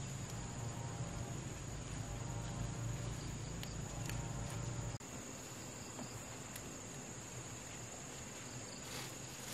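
Insects chirring steadily in a high, unbroken drone. Under it a low hum fills the first half and stops abruptly about halfway through.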